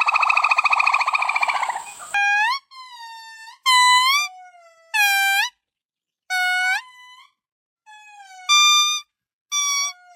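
A primate calling: a loud, rapidly pulsing buzzy call for about two seconds, cut off and followed by a series of about seven short, clear whistle-like calls, each rising in pitch at the end.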